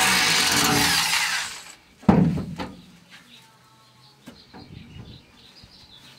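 Power drill with a half-inch bit running as it reams out a hole in the pickup bed's sheet metal to fit a rivet nut, then stopping about a second and a half in. A sharp knock follows, the loudest sound, then a few light clicks and taps.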